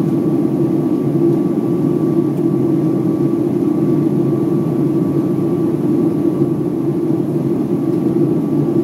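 Steady cabin noise of a jet airliner in flight, heard from inside the passenger cabin: an even, low rumble of engines and airflow, with a faint steady tone above it.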